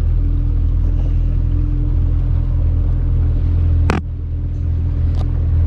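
Boat motor running at low speed, a steady low rumble with a faint hum above it. A sharp click about four seconds in, after which the rumble dips briefly, and fainter clicks near the end.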